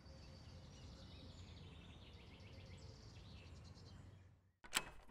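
Faint outdoor ambience with small birds chirping. Near the end it cuts out, and a sharp click and a few knocks follow.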